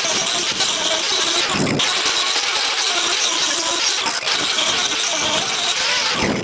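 Turbo plane carving disc on an angle grinder running steadily as it strips bark from a wood slab. The sound breaks off very briefly twice.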